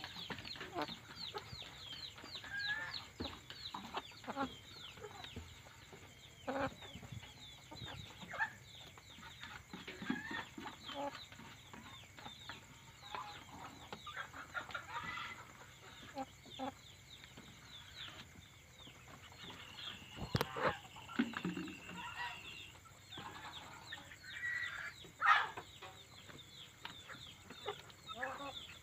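Domestic chickens roosting at night, giving scattered low clucks and murmurs. A dense, rapid high-pitched chirping runs behind them, and two sharp knocks come about two-thirds of the way in and near the end.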